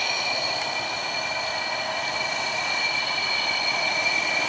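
Jet aircraft turbine engines running, a steady high-pitched whine over a rushing hiss.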